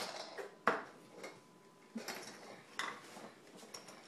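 A toddler handling kitchenware, with irregular knocks and clinks about once a second, the loudest just under a second in.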